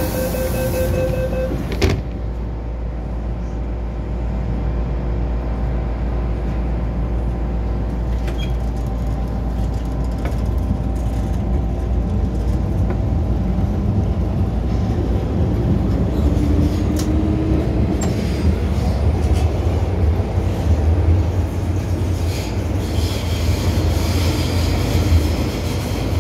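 MTR M-Train cabin noise: a steady low rumble that grows louder in the second half as the train gets under way. A single sharp knock about two seconds in.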